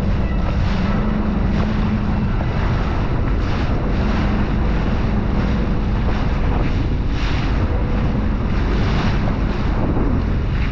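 Wind buffeting the microphone over water sloshing, with the drone of a Sea-Doo Spark jet ski engine underneath, strongest in the first couple of seconds.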